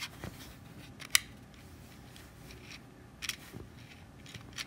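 A few light, sharp plastic clicks and taps as a cassette adapter's plastic shell is handled and turned in the fingers, the loudest about a second in.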